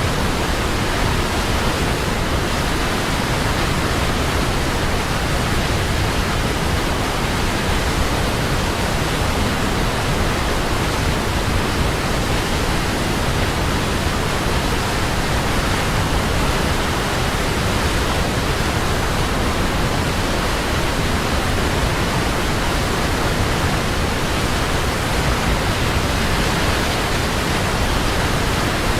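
A waterfall rushing steadily: an even, unbroken wash of falling water with no changes.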